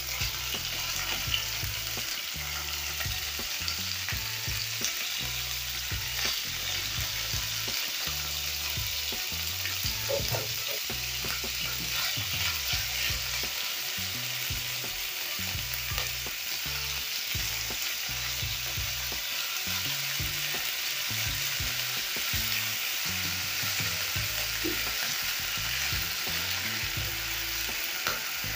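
Slices of beef liver sizzling steadily in hot oil in a non-stick frying pan, with a spatula stirring and scraping the pieces now and then.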